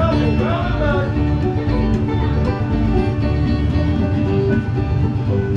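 Acoustic string-band music with plucked strings and a steady bass pulse.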